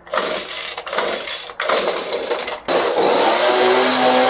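Handheld leaf blower running, its whoosh dipping briefly twice, then settling at a steady full speed with an even hum from about three seconds in.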